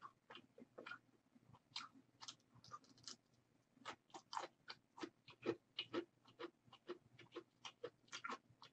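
Close-miked eating of instant fried-udon ramyeon noodles: faint chewing, many short wet mouth clicks, and sips of broth from a bowl.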